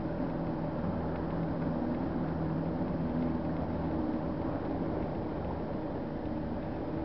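Small motorboat's engine running at a steady, even speed.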